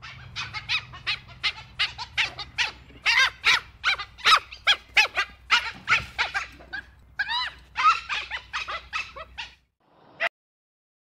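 Dholes giving a rapid run of short, high yips and squeaks, about three a second, which stops near the end with one last call; a faint low hum sits beneath.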